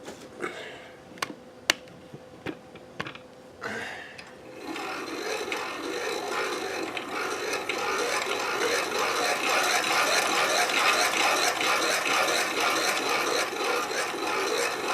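Gear-driven Swedish bobbin winder spinning fast, its gears running with a dense, steady rattle as it winds thin thread onto a sewing machine bobbin. A few separate clicks come first, and the winding starts about four and a half seconds in, building up speed over the next few seconds.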